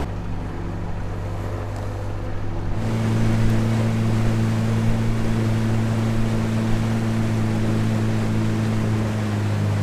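Outboard jet motor of a flat-bottom river boat running at a steady cruise, a constant low drone with water rushing past the hull and wind. The drone steps up slightly in pitch and level about three seconds in.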